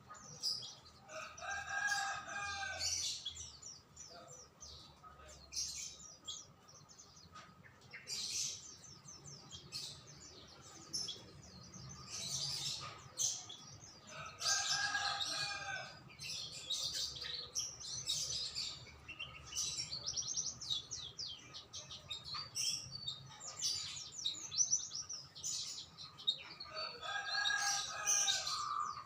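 Songbirds singing in quick, dense runs of high chirps, while a rooster crows three times, about every thirteen seconds.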